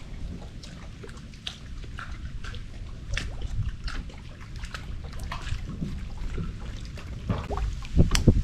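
Water dripping and trickling in scattered drops and small splashes, over a low steady rumble, with a sharper knock about eight seconds in.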